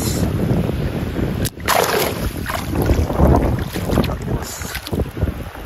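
Wind rumbling on the microphone, with bursts of water splashing in shallow muddy water around a fish, about a second and a half in and again near the end.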